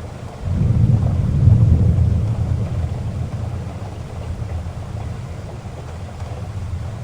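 Heavy rain falling steadily, with a low rumble of thunder that swells about half a second in and slowly dies away.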